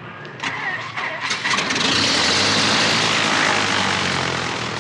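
Single-engine light aircraft's piston engine starting: a few sharp sputters, then it catches about a second and a half in and runs loudly with its propeller turning.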